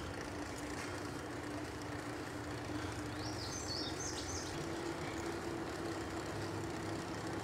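Ride noise from an e-bike rolling along a paved trail: a steady rumble of tyres and wind with a steady low hum. A few short high chirps sound about three seconds in.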